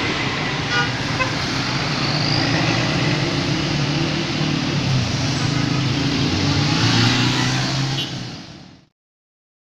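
Night street traffic: a tour bus's diesel engine running close by amid passing motorbikes and cars, with a brief horn beep about a second in. The sound fades out to silence just before the end.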